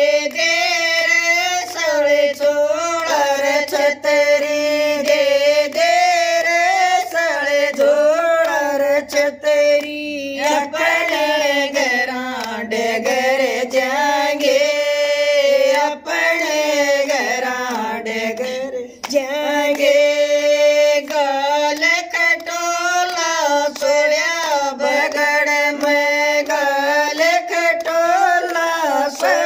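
Women singing a Haryanvi folk song together in a continuous, chant-like melody.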